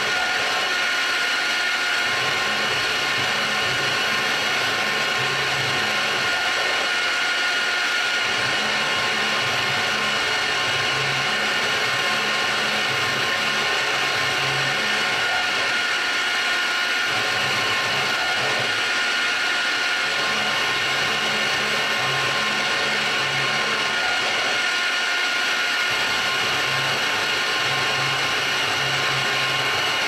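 CNC mill engraving an aluminium panel: the spindle runs with a steady high whine while the stepper motors hum underneath, starting and stopping every second or few as the axes move through the engraving path.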